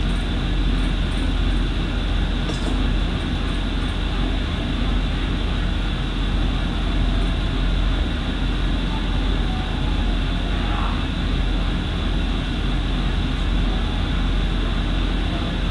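Steady mechanical hum and rushing noise from something running, like a fan, with a few faint ticks.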